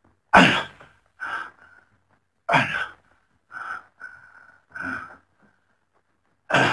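A man gasping and groaning in distress: a series of ragged, noisy breaths roughly once a second, the first the loudest.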